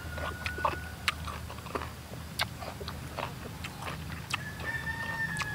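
A person chewing crisp slices of unripe green mango, with sharp crunches at irregular intervals.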